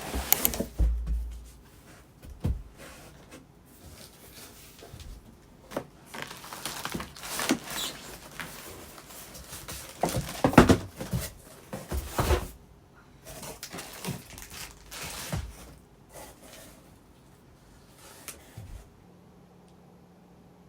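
Irregular handling noises: clicks, light knocks and rustling of objects being moved about in a small room, dying away in the last few seconds.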